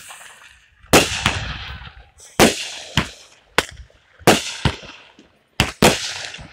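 Consumer fireworks going off in quick succession: about ten sharp bangs, roughly two a second, each trailing off in a short hiss.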